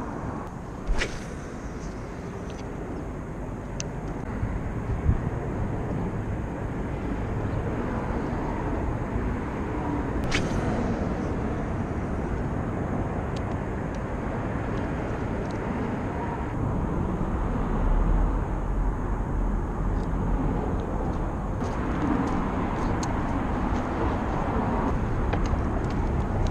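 Steady rumble of road traffic from freeway overpasses, with a few sharp clicks about a second in and again about ten seconds in.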